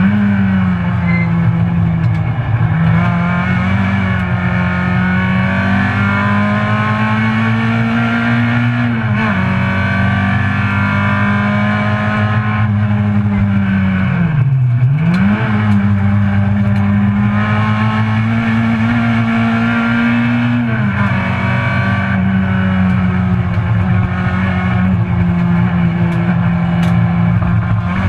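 Race-prepared Citroën C2 GT's engine, with Newman cams, heard from inside the cabin at high revs under load. The pitch holds near the top of the rev range with brief drops at gear changes, and about halfway through it falls away deeply before climbing hard again.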